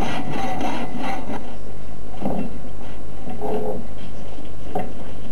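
Hand saw cutting through a wooden plank in even back-and-forth strokes, about three a second, stopping about a second and a half in. A few short, unclear sounds follow later.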